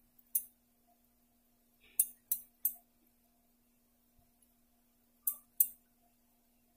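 Light, sharp clinks of hands and dishware against a white ceramic bowl and plate while chhena balls are rolled: one just after the start, three in quick succession about two seconds in, and two close together near the end, over a faint steady hum.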